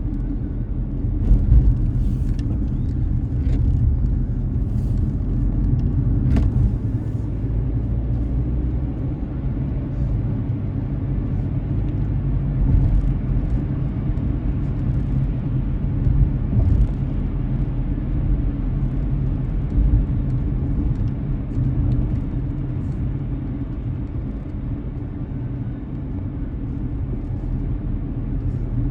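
Car driving along the road: a steady low rumble of road and engine noise as heard from inside the car, with a few sharp light ticks in the first several seconds.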